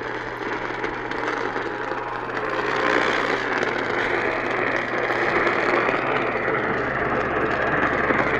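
AM radio reception noise: a steady hiss with faint crackle over a low hum, swelling a little about two and a half seconds in.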